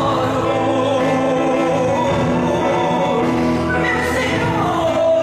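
Choir singing long held notes, with a wavering lead voice over a sustained low accompaniment.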